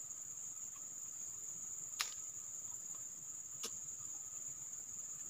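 Insects chirring steadily in a continuous high-pitched drone, with two sharp clicks, one about two seconds in and one a little under two seconds later.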